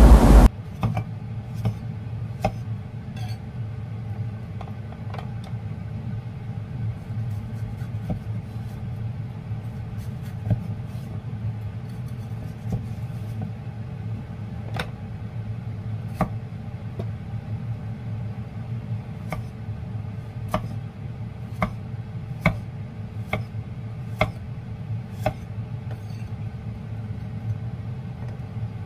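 Cleaver chopping bitter gourd on a wooden chopping block: irregular sharp knocks every second or so, coming faster in the second half, over a steady low hum.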